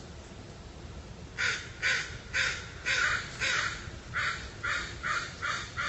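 A bird giving a rapid series of about ten harsh calls, a little over two a second, starting about a second and a half in, the later calls shorter.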